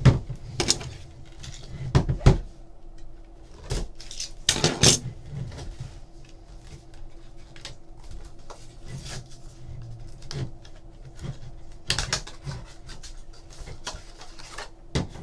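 A cardboard trading card box being handled and opened by hand: scattered knocks and taps against the table, with brief rustles about four seconds in and again near the end.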